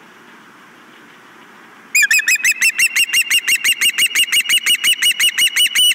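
Osprey calling: a rapid series of loud, sharp whistled chirps, about six a second, starting about two seconds in over a faint steady hiss.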